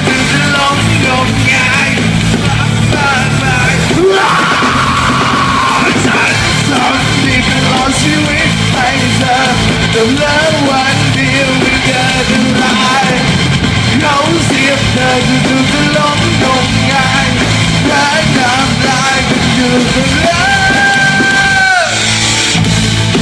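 Loud live rock band playing, with shouted voices over a steady driving beat. Near the end a long held high note slides down in pitch.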